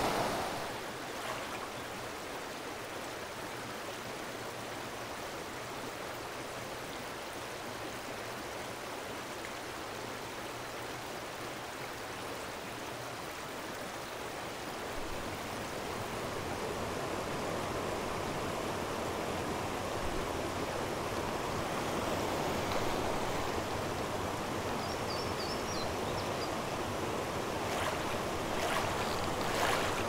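Mountain stream running over rocks, a steady rush of flowing water that grows a little louder about halfway through. A few faint high chirps come near the end.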